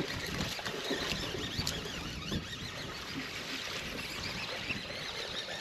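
Water lapping and slapping in small irregular splashes against the hull of a bass boat.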